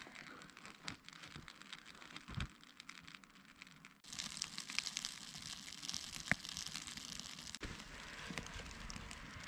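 Newly lit wood campfire crackling and popping as the kindling catches, with one sharp snap about six seconds in. The crackle is faint at first and grows louder from about four seconds in.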